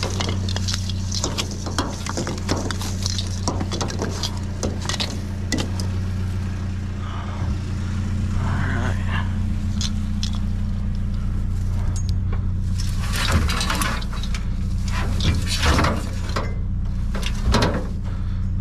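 Small hard objects clinking and rattling as junk is handled and sorted, over the steady low hum of an idling vehicle engine.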